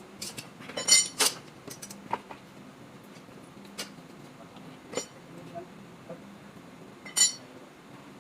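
Sharp metallic clinks and clanks of tools and metal parts knocking together, a scattered handful of strikes with the loudest just after a second in and another near the end.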